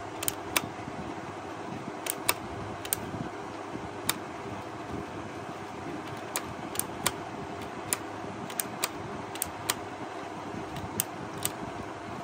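Sharp, irregular plastic clicks and taps as hands handle the plastic casing and switch area of an electric blower, more than a dozen in all, over a steady background noise.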